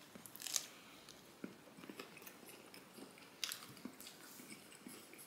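A person chewing food: faint mouth sounds with small clicks at irregular intervals.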